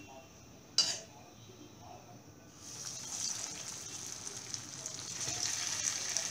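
A short sharp knock about a second in, then hot oil in a steel kadhai starts sizzling as a dahi kebab is lowered into it for deep frying, the sizzle rising and then holding steady.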